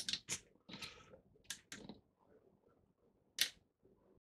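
A few faint, short clicks and taps of small objects being handled, spaced unevenly, with one sharper click about three and a half seconds in.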